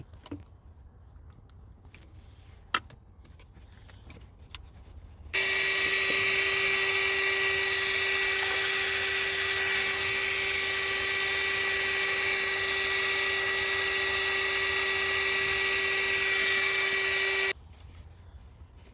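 Heat gun switched on, its fan motor running with a steady whine and rush of air for about twelve seconds before it is switched off near the end. It is warming stiff rubber coolant hoses so they will slip back onto their fittings.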